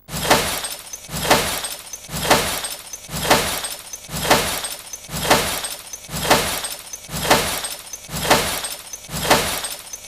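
A glass-shattering sound effect repeated in a steady rhythm, about one crash a second, each with a short fading tail.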